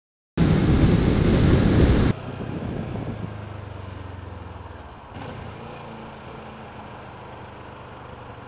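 Motorcycle on the move: the Kawasaki ER-6f's parallel-twin engine running steadily under wind and road noise. The sound cuts in with a loud rush of noise, which drops after about two seconds to a steadier, quieter engine hum.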